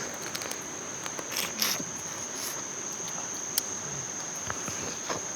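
Insects trilling steadily on one high pitch, with a few light clicks and brief rustles scattered through.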